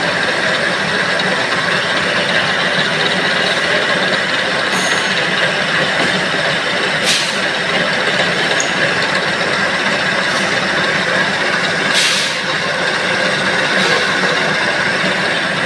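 Steady, loud din of workshop machinery running, with a few short hissing bursts, the clearest about 7 and 12 seconds in.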